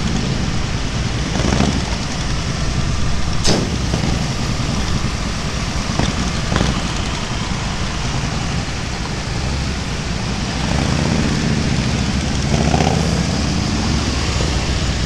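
Motorcycle engines running in slow traffic, with the deep, thunderous rumble of Harley-Davidson V-twin touring bikes close ahead over the rider's own bike. The rumble swells about three-quarters of the way through, and a few sharp clicks sound in the first half.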